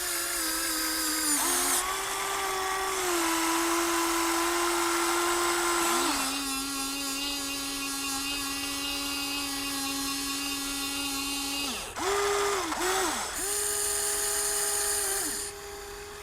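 Electric gear motors of a Huina 1593 radio-controlled toy excavator whining. The pitch steps a few times and drops lower about six seconds in as different functions run. Near the end the motors stop briefly, give two short spurts, then run steadily again.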